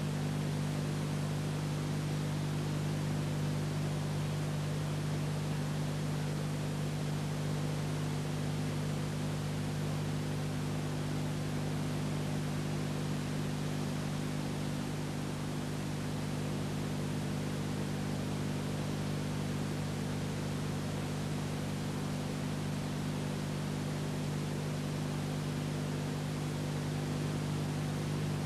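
Steady hiss with a low electrical hum underneath, unchanging throughout and with no other sound: the noise floor of an old silent film's transfer to video.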